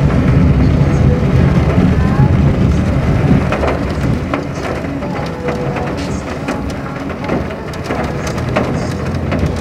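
Rain hitting the roof and windows of a moving car, heard from inside the cabin, over the low rumble of the car on the road. The rumble is stronger in the first few seconds; from about three seconds in, many sharp drop hits stand out.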